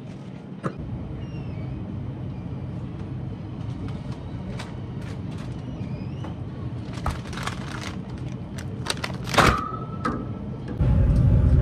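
Shopping cart rolling through a store: a steady rattle with scattered clicks and a few faint squeaks, and a sharp clink with a brief ring about nine seconds in. Near the end a sudden louder rumble sets in as the cart-mounted phone is handled.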